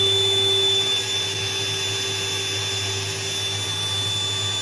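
Small electric air compressor running steadily: a constant high whine over a low hum, feeding air through a tube into an airtight protective suit.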